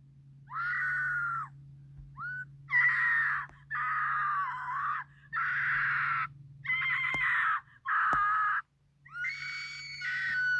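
Scream sound effect: a voice screaming in about eight short bursts of around a second each, with brief gaps between them, over a steady low hum. The last scream trails off falling in pitch.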